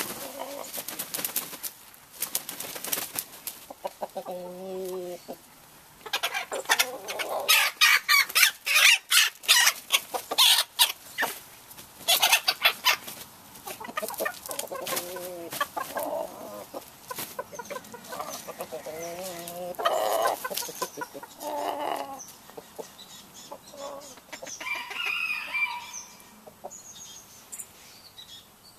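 Chickens mating: roosters mounting a Mille Fleur hen, with clucking and short squawks throughout and a loud stretch of wing flapping and scuffling in the first half.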